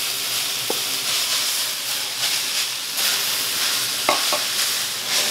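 Kale sizzling in a crowded wok over a gas flame while a wooden spoon stirs it, with a couple of light knocks of the spoon on the pan. The wok holds too much kale for its size, so the greens steam more than they fry.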